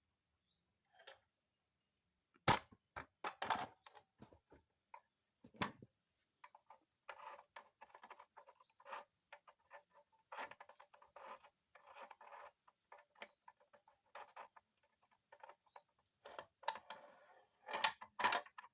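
Irregular light clicks, taps and knocks of small parts being handled and worked, louder around three seconds in and near the end. There is no steady motor run.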